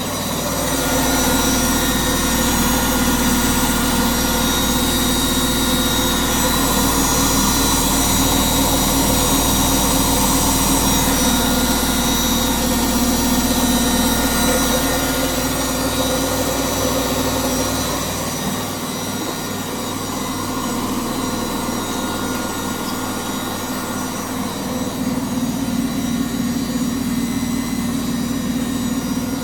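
Front-loading washing machine running at high speed, its motor driving the drum through the belt in a spin, a steady machine whine with several fixed tones over a low rumble. About two-thirds of the way through the low rumble drops away and the running changes.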